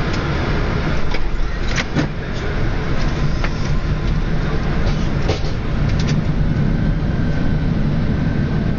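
Boeing 747-400 flight deck during the landing rollout: a steady loud rumble of engines and wheels on the runway, with a few sharp knocks and rattles about two, three and a half and five seconds in.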